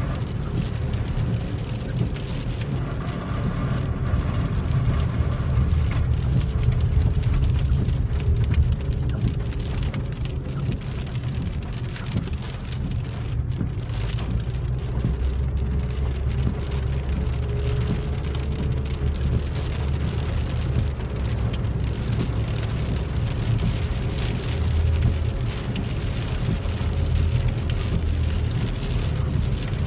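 Rain and wet-road noise heard from inside a moving car's cabin: a steady hiss of rain over a continuous low rumble of engine and tyres.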